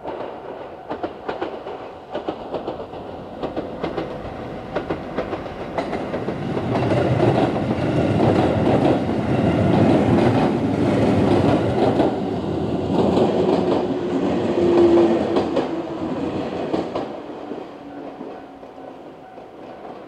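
A JR West 221 series six-car electric train passing, its wheels clacking over the rail joints. It grows louder about six seconds in, stays loud until about seventeen seconds, then fades.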